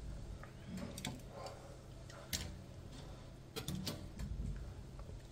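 A serving utensil clicking lightly against a dish as pieces of garlic are spooned onto the plates: about four sharp clicks in the second half, two of them close together, over a faint low hum.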